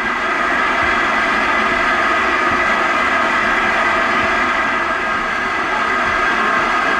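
Steady, loud hiss of steam escaping from a standing LMS Stanier Black Five steam locomotive.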